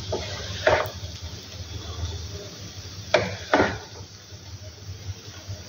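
Wooden spatula stirring and scraping cooked sev bhaji around a non-stick kadai, in a few short strokes: one about a second in, then a sharp tap and two more strokes between three and four seconds in. A low steady hum runs underneath.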